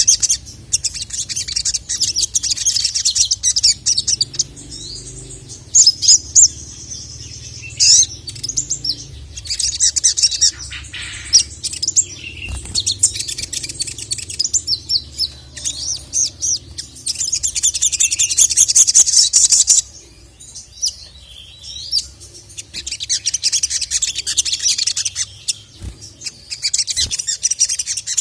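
Sogon (sogok ontong) sunbird singing and calling in long, rapid, high-pitched chattering bursts with short pauses between them. This is the excited 'gacor' call used as masteran to draw out and provoke male birds.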